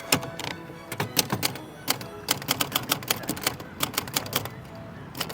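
Typewriter keys being struck in quick, irregular bursts of clacks, several a second, as a poem is typed out.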